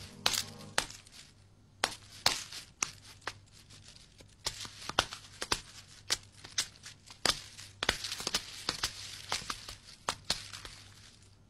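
Irregular crackles and sharp clicks, several a second, over a faint steady low hum.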